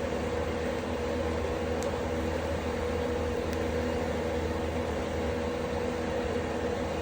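Ceiling exhaust fan pulling wood-fire smoke out of a glamping tent, running with a loud steady hum and rush that buries the crackle of the fire. Two faint ticks come through, about two and three and a half seconds in.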